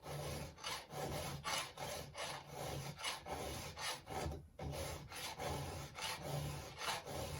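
Hand file rasping across the steel cutter teeth of a square ground chainsaw chain during sharpening: repeated strokes about two a second, with a short pause about halfway.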